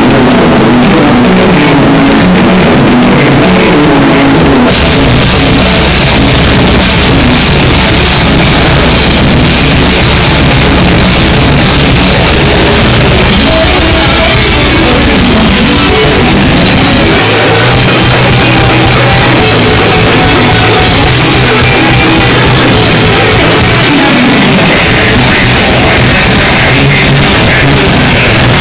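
A melodic death metal band playing live, recorded on a phone so loud that the sound is overloaded and distorted. Guitar alone plays at the start, and the drums, cymbals and full band crash in about five seconds in.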